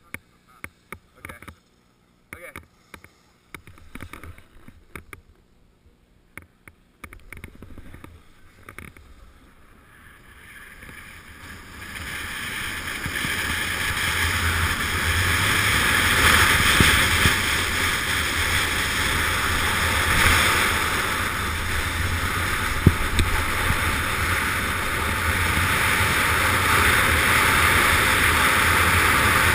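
Skis clicking and scraping on the snow as the skier starts off. From about ten seconds in this gives way to a loud, steady rush of wind over the camera microphone together with skis hissing on the snow, building as the skier picks up speed on a run at up to 50 mph.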